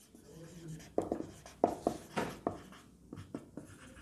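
Marker pen writing on a whiteboard: a run of short, separate strokes, a few a second, starting about a second in.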